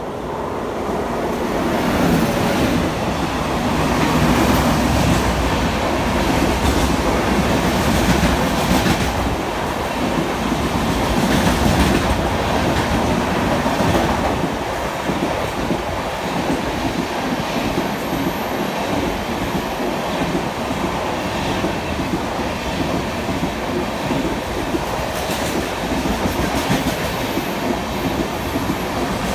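WAP-7 electric locomotive passing at speed, followed by a long rake of LHB coaches rushing by, the wheels clattering over rail joints. The noise builds over the first couple of seconds as the locomotive arrives, is loudest for about the first half, then settles to a steady rush as the coaches go past.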